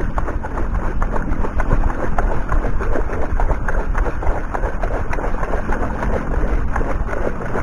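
Water splashing and sloshing as a long-handled sand scoop is worked through shallow, muddy water, with a steady low rumble underneath.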